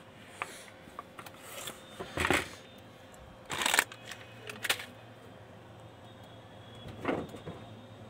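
Handling noise: short rustling and scraping sounds, about half a dozen, the loudest around two and three and a half seconds in, over a faint steady hum.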